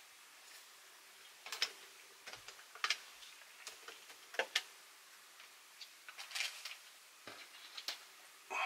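Irregular light clicks and taps of a Philips N2234 cassette recorder's plastic chassis and tape mechanism being handled and fitted back together by hand, with a few sharper ticks and brief rustles.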